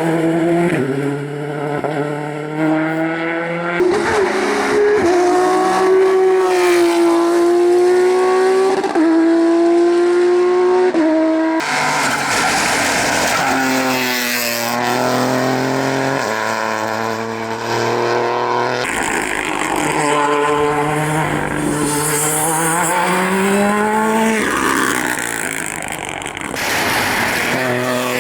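Rally cars' engines at full attack, revving hard and dropping back with each gear change and corner. The engine note changes abruptly a few times.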